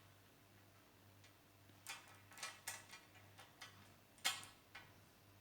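Small magnetic balls clicking as they snap together while being arranged, a few quiet, irregular clicks starting about two seconds in, the sharpest a little after four seconds.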